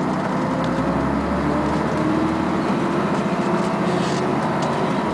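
Scania CN113ALB articulated bus's diesel engine and driveline, heard from inside the passenger cabin as the bus drives, a steady drone with a whine that rises slightly in pitch.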